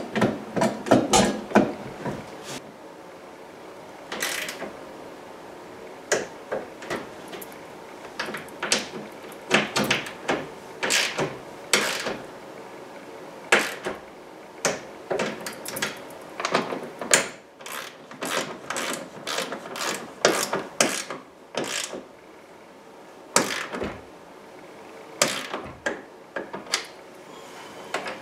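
Socket ratchet clicking in short quick runs with pauses between, as the nuts holding the rear hatch's deck lid panel are run down and tightened.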